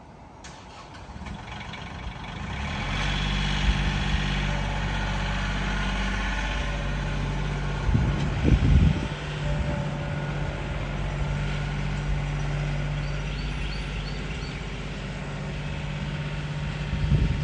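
A heavy vehicle's engine grows louder over the first few seconds as it draws near, then runs steadily at idle. A couple of loud low thumps come about eight seconds in.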